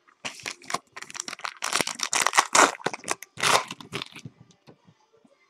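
Foil trading-card pack wrapper crinkling and rustling as it is handled, a dense irregular rustle that dies away about five seconds in.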